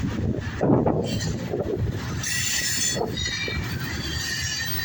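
A CSX mixed freight train's cars rolling past: a steady low rumble of steel wheels on rail with irregular surges and a faint high wheel squeal.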